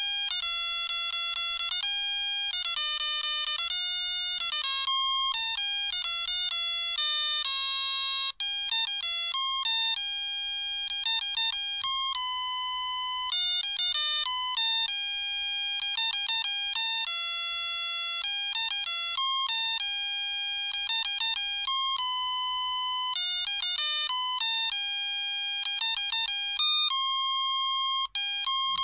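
Electronic tune beeped out by the music chip in the control box of a Dear Santa musical Christmas light set: thin, buzzy tones, one note at a time, changing several times a second. It breaks off for an instant about eight seconds in and again near the end as one song gives way to the next.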